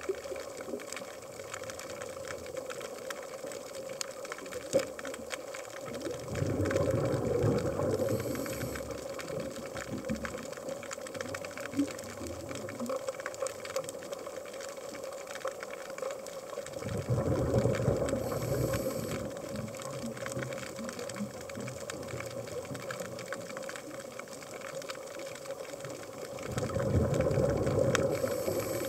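Scuba diver's breathing underwater: exhaled bubbles rumble out of the regulator three times, about ten seconds apart, each lasting two to three seconds with a short high hiss near its end. Between breaths there is a steady hum and scattered faint crackling clicks.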